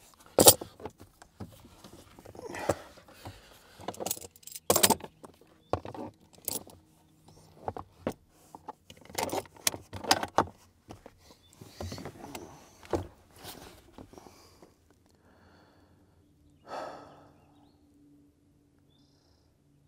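Metal hand tools clinking and clattering as they are sorted through in search of the right one: a quick string of sharp metallic rattles that dies away about two-thirds of the way through, with one more short rattle near the end.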